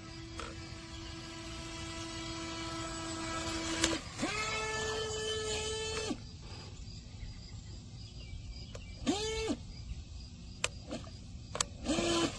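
Brushless electric motor of a Cheerwing UDI023PRO RC jet boat whining as it is driven at speed 3: a steady whine at first, then a higher, louder whine for about two seconds as the throttle is opened, followed by short throttle blips that rise and fall in pitch around the middle and again near the end.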